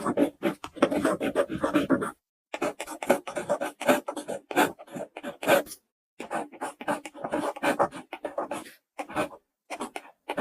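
Dubbed-in sound effect of a pen writing on paper: a rapid run of short scratchy strokes, broken by two brief pauses, about 2 seconds in and about 6 seconds in.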